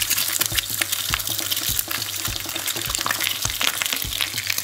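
An egg frying in hot oil in a pan, sizzling steadily with many small crackling pops; a low steady hum runs underneath.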